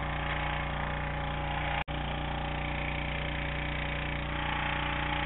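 A small engine running steadily at an even, unchanging pitch, with the sound cutting out for an instant about two seconds in.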